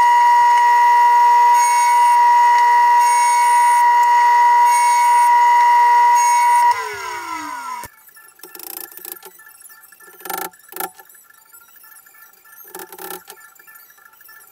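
Sliding table saw running with a steady high whine, then switched off about seven seconds in, its pitch falling as the blade spins down. After that, a few light taps of a hammer on a chisel.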